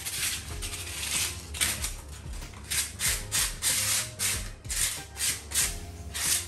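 A hand scraper rasping across a concrete ceiling, taking off flaking paint and loose plaster in short back-and-forth strokes, about two or three a second, that grow regular after about a second and a half.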